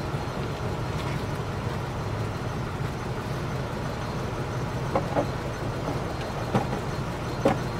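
Pickup truck engine idling steadily, with a few short metal clanks in the second half as the snow plow's mount is worked onto the truck's front hitch.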